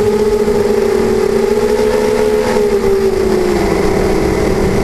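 Beecrazy Daredevil FPV racing quadcopter's electric motors and propellers whining in flight, several close tones drifting up and down in pitch as the throttle changes, dipping briefly near the end.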